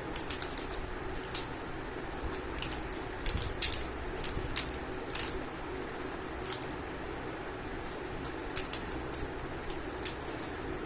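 3×3 Rubik's cube being turned fast during a speed solve: the plastic layers click and clack irregularly, several times a second, over a steady low hum.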